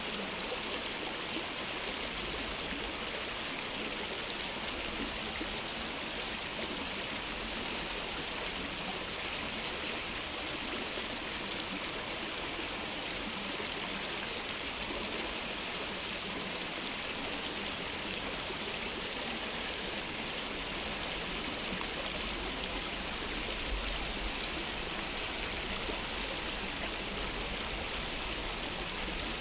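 Stream water flowing steadily, a continuous rush and trickle of running water.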